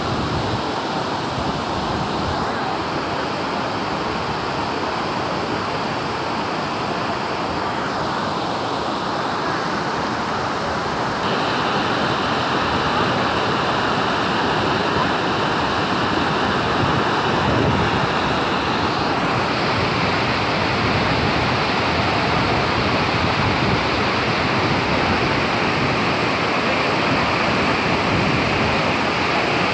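A waterfall in flood and the torrent pouring over the rocks below it make a steady, loud rushing of water that never lets up. It gets slightly louder about a third of the way in.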